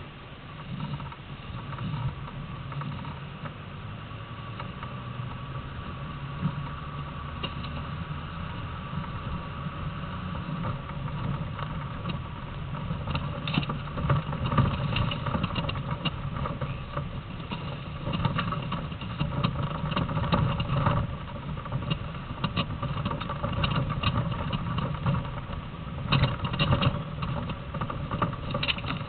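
Land Rover Defender driving over rough off-road ground, heard from inside the cab: a steady engine drone with frequent knocks and rattles, the knocks growing busier and louder from about halfway through.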